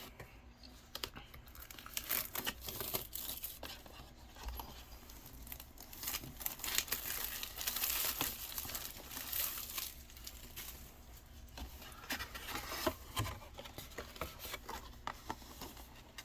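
Plastic shrink-wrap being torn and crinkled off a sealed trading-card display box, an uneven run of tearing and crackling.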